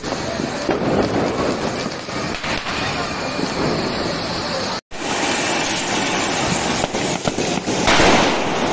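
Ground fountain fireworks (anar flower pots) spraying sparks with a steady, dense crackling hiss. The sound breaks off for an instant about halfway, then resumes and grows louder near the end as two fountains burn together.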